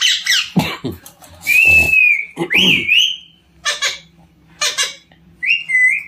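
Alexandrine parakeet calling: loud whistled notes, one rising and falling, alternating with short harsh squawks.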